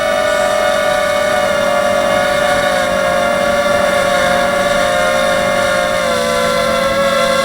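H250 racing quadcopter's brushless motors and propellers whining steadily in flight, several close tones that drift slightly in pitch with throttle.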